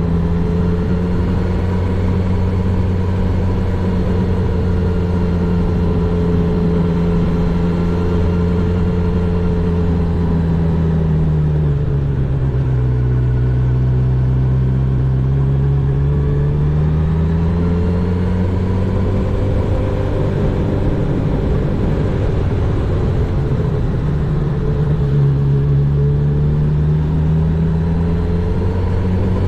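Honda CB1000R's inline-four engine running while riding. Its note is steady at first, drops about twelve seconds in, climbs back a few seconds later, and dips and rises once more near the end.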